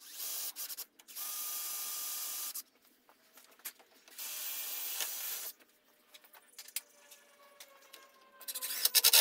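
A small power tool running in three short bursts, each starting and stopping abruptly, with scattered clicks between them, then a quick loud rattle near the end.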